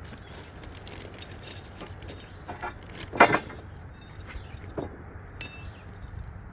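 Metal arch pipes and hardware being handled during assembly: scattered knocks and metallic clinks, the loudest knock about three seconds in, over a steady low background noise.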